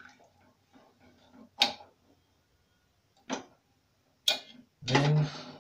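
Wooden spoon knocking against the rim of an aluminium cooking pot: three sharp knocks, the loudest at the start, with faint stirring between.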